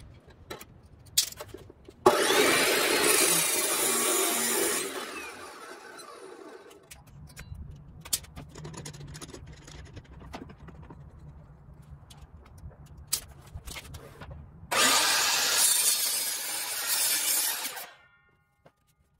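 Two power-saw cuts of about three seconds each, with clicks and handling knocks and a low hum between them. The later cut, near the end, is a sliding compound miter saw cutting through a pressure-treated 2x12 board.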